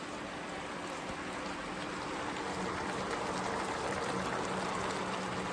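Chili crab sauce simmering in a pot, a steady bubbling and sizzling hiss that grows slowly louder.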